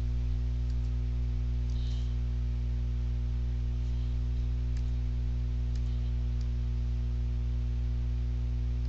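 Steady low electrical hum, a buzz of several held tones, with a few faint clicks.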